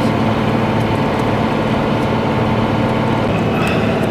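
Steady road and engine noise of a vehicle driving, heard from inside the cab, with a faint steady hum.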